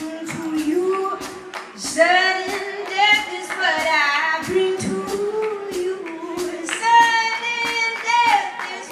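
A woman singing live, her voice bending between notes and holding a long steady note near the end. Under it runs a steady beat of sharp percussive hits.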